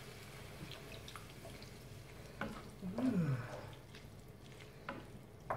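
Faint wet sounds from a frying pan of vegetables and Quorn mince with water just added, with a few light knocks as a wooden spatula stirs it.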